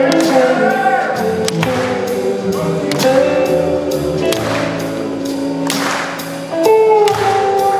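Large live soul-rock band playing: electric guitar, bass and drums with a steady beat, and a woman singing into a microphone over the band.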